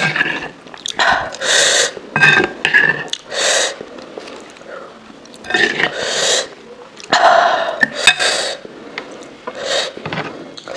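Close-miked eating sounds: chewing and crunching lettuce-leaf wraps, in short irregular bursts, mixed with the rustle of lettuce leaves being handled and a spoon scooping thick sauce from a ceramic bowl.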